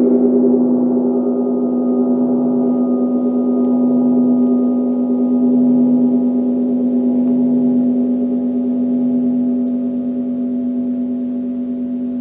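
Gong ringing on after being played, a loud steady tone with many overtones that pulse slightly as it slowly fades.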